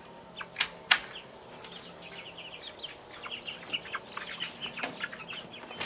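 Two sharp clicks about half a second and a second in as the chicken coop's door latch is worked, then chickens clucking in short soft calls, more often in the second half. A steady high insect drone runs underneath.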